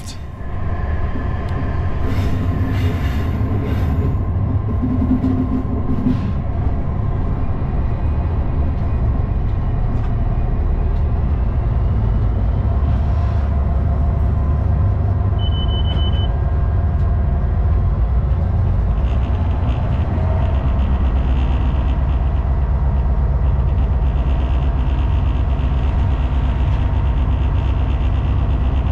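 Class 59 diesel locomotive, with its two-stroke EMD V16 engine, running steadily as it hauls a loaded freight train slowly: a continuous low rumble heard from the cab. A brief high tone sounds once about halfway through.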